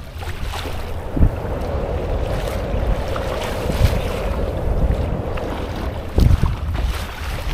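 Wind gusting on the microphone over the splash and slosh of choppy water around a kayak being paddled. There are a couple of louder thumps, about a second in and again near the end.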